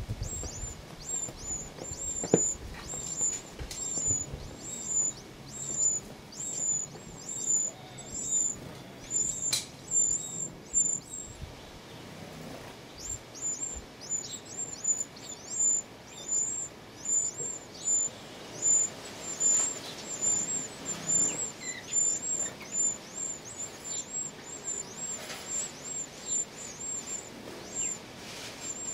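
Wren nestlings begging: thin, high-pitched cheeps repeated about twice a second, with a short pause about 11 seconds in. A couple of sharp knocks in the first ten seconds.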